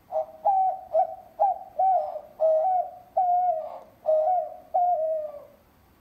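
White-winged dove cooing: a run of about nine short coos in quick succession, the last one drawn out and falling in pitch.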